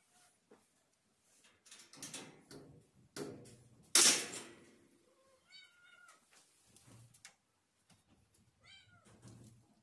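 A puppy whimpering in short high-pitched whines, twice in the second half, each one rising and then falling in pitch. Before them, from about two seconds in, there is a burst of clattering noise, loudest at about four seconds.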